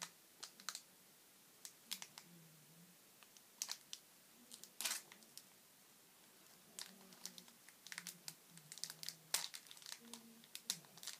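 Foil wrapper of a Pokémon card booster pack crinkling and crackling in scattered short bouts as it is handled and worked at to tear it open.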